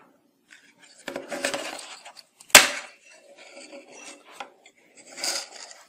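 Grey plastic housing of a dishwasher overflow float switch being pried open by hand: plastic rubbing and rattling, with one sharp snap about two and a half seconds in as a catch comes free.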